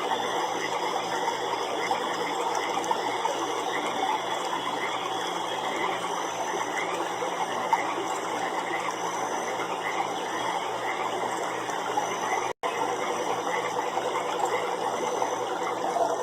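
Night chorus of frogs: many overlapping calls in a steady, dense din. It cuts out for an instant about twelve seconds in.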